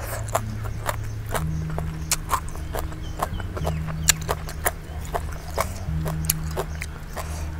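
Close-miked chewing of papaya salad, wet mouth smacks and sharp clicks coming irregularly several times a second. Sustained low background music notes run underneath.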